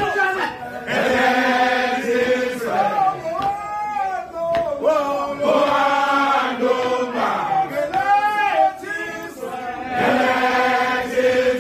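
A group of men chanting a Zulu song together in unison, in long held phrases with short breaks between them.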